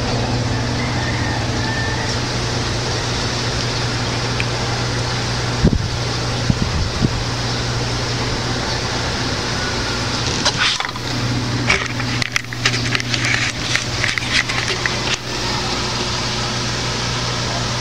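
Steady low hum and hiss of background noise, with a few clicks about six seconds in and a cluster of handling clicks and rustles from about ten to fifteen seconds in.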